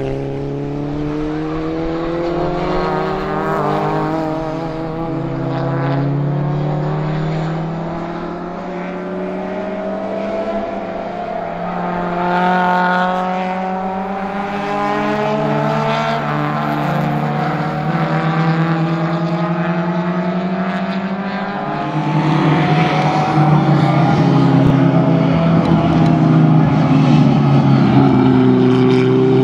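Racing car engines under hard acceleration as several cars corner and power out onto the straight. The pitch climbs and drops back at each gear change, several times over. The sound grows louder for the last several seconds as a car comes closer.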